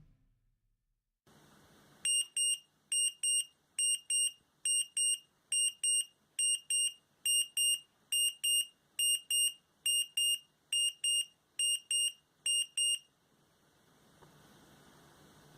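Buzzer of a DIY 4-digit LED alarm clock kit sounding its alarm in high, short double beeps, about one pair a little under every second. About thirteen pairs sound, and then they stop.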